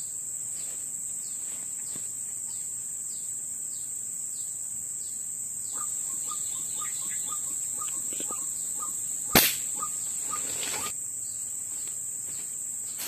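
A scoped air rifle fires once with a single sharp crack about two-thirds of the way through, over a steady high insect drone. Short repeated call notes run through the middle stretch, before and around the shot.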